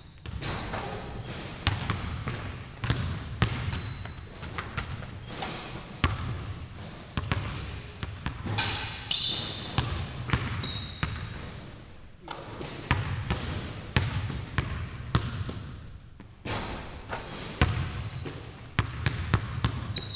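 Several basketballs being dribbled on a hardwood gym floor, a quick, irregular run of sharp bounces, with short high sneaker squeaks now and then.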